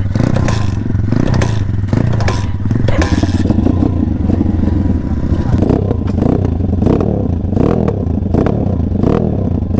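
Kayo pit bike's YX 140cc single-cylinder four-stroke engine running at a fast idle. In the second half the revs rise and fall over and over, as if the throttle is being blipped.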